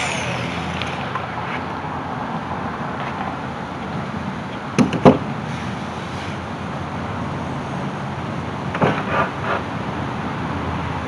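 Steady rushing background noise in a work space, with a couple of sharp knocks about five seconds in and a short cluster of knocks and clatter about nine seconds in.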